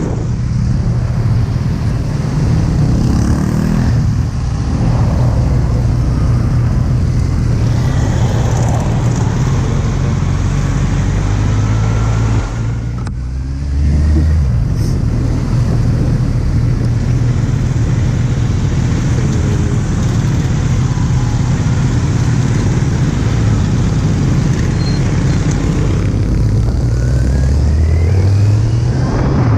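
Kawasaki Z800 inline-four motorcycle engine running on the road under loud wind noise on the GoPro's microphone. About halfway through the engine sound drops briefly and its pitch glides, and near the end the engine note rises as the bike accelerates.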